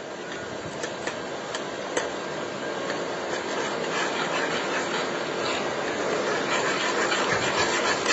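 Thickening sugar syrup boiling in a non-stick pan, a steady bubbling hiss that grows slightly louder. A few light clicks of a spoon against the pan in the first couple of seconds as the food colour is stirred in.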